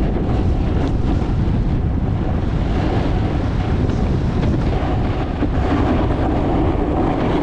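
Steady wind noise buffeting an action camera's microphone during a fast run down a groomed slope, mixed with the hiss and scrape of sliding on hard-packed snow.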